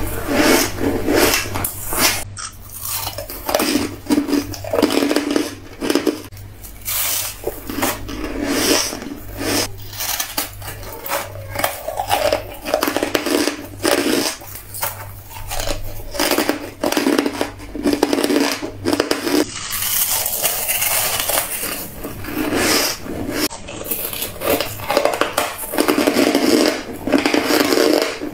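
Close-miked crunching of shaved ice and freezer frost being bitten and chewed, a dense, irregular crackle. A metal spoon scrapes and clinks against a plastic container between bites. The crunching is broken by a few abrupt cuts.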